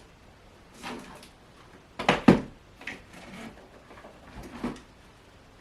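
Knocks and clicks of a storage container and its lid being handled on a table: a faint knock about a second in, two sharp knocks close together about two seconds in, then a few lighter clicks.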